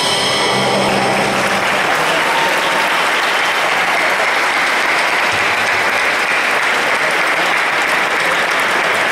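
Audience applauding steadily, a large crowd clapping.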